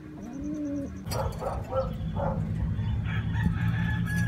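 Racing pigeons cooing in the first second. After that comes a run of short, sharp, louder sounds over a steady low hum.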